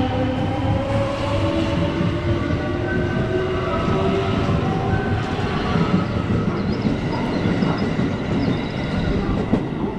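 Electric train pulling away, its motors whining with several tones that rise slowly in pitch through the first half, over a steady rumble of wheels on rail.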